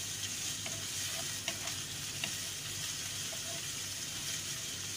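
Sliced onions sizzling steadily in hot oil in a nonstick pan while a wooden spatula stirs them, with a few faint clicks.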